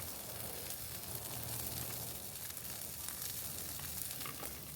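Chicken wings and legs sizzling steadily as they grill.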